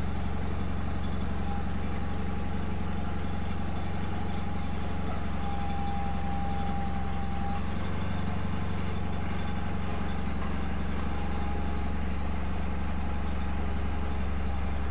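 John Deere 318 garden tractor's air-cooled two-cylinder Onan engine idling steadily, freshly started from cold and warming up, with a faint high whine over the hum.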